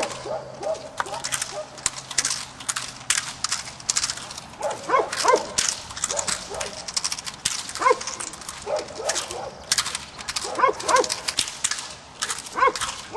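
A Belgian Malinois barking in short clusters of barks during protection work, among many rapid sharp cracks and slaps.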